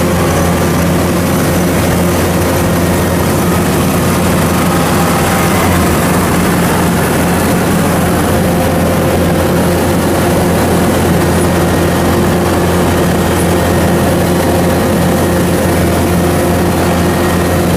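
Rice combine harvester running steadily at work: a loud, constant engine drone with machinery noise, heard from on board the machine.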